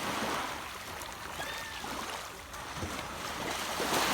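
Sea waves washing on a beach, a steady rushing wash that swells louder near the end as a wave comes in. A few faint, short high-pitched calls sound over it.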